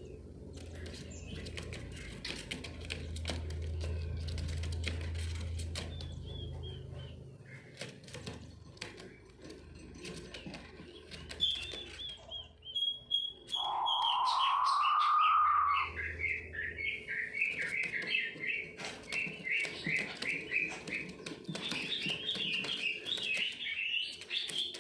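King quail calling: a loud drawn-out rising call lasting about two seconds past the middle, then a fast run of short high chirping notes. Scattered clicks and scratches run throughout.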